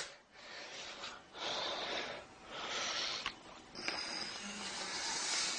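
A man breathing heavily in and out, about four long breaths in a row.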